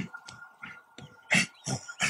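A person's forceful, breathy vocal bursts, like grunts or sharp exhalations, coming irregularly a few times a second, the loudest about halfway through. A faint steady high tone runs beneath.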